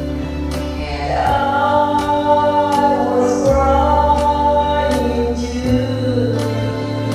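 Karaoke singing of a slow song over a backing track with a steady beat and bass, the voice holding long notes that bend in pitch from about a second in.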